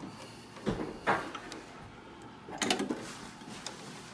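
Metal parts of an antique seed-packet packing machine being moved by hand, giving a couple of light knocks and a short clatter.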